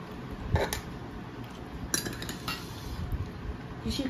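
Steel serving spoons clinking against bowls and plates as curry is served at the table: a few scattered sharp clinks.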